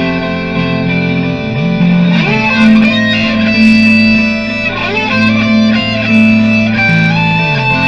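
Electric guitar improvising over a sustained looped guitar layer, with long held notes and several sliding pitch bends.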